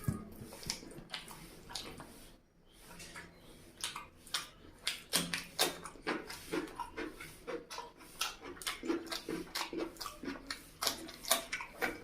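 Close-miked chewing and lip-smacking of a person eating curry and rice, a rapid run of wet smacks and clicks that eases briefly about two and a half seconds in, then picks up again.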